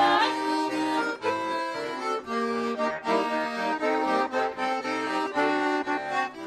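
Accordion playing an instrumental interlude between verses of a Russian folk song: a melody of short notes over stepping bass notes.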